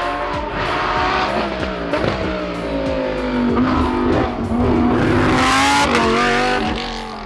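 A GT race car's engine under hard throttle on a hillclimb. Its pitch falls and rises several times as it slows, shifts gear and accelerates again.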